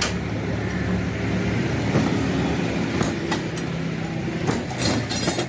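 An engine running steadily, with scattered sharp clicks and taps and a quick cluster of them near the end.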